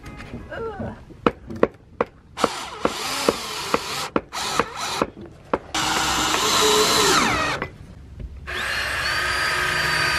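Cordless drill driving screws into wooden shed trim. It starts with a string of short clicks and brief trigger bursts, then runs in two steady stretches of a second or more each, the first winding down in pitch as it stops.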